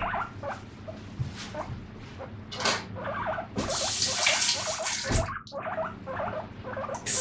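Abyssinian-mix guinea pig making a run of short, repeated squeaks, several a second. A tap runs briefly near the middle, and there is the odd clink of dishes being washed.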